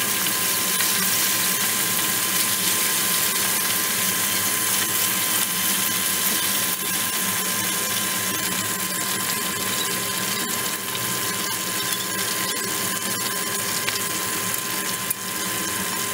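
Chicken wings deep-frying in hot oil: a steady, dense sizzle with fine crackling. A thin steady tone runs underneath.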